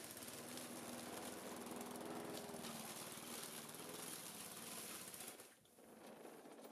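Old walk-behind petrol lawn mower running as it is pushed through pea and bean haulms, then dying away about five and a half seconds in. The mower is stalling, which the owner puts down to a spark plug that needs changing.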